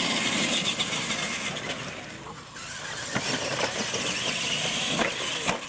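Two R/C monster trucks racing flat out, their electric motors and gearing giving a high whine that climbs in pitch as they accelerate. Scattered clicks and knocks come from the trucks running over the dirt and ramps.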